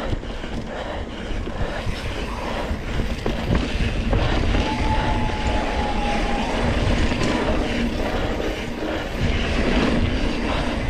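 Riding noise from a Surly Krampus single-speed mountain bike ridden fast on a dirt trail: wind rumbling on the microphone and the tyres and bike rattling over the ground. It grows louder from about four seconds in.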